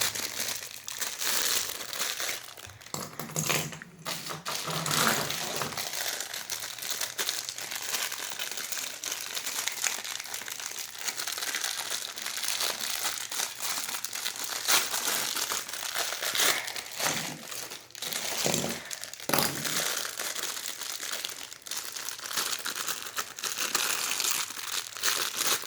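Plastic packaging crinkling and rustling continuously as fidget spinners are unwrapped by hand, with many irregular sharper crackles.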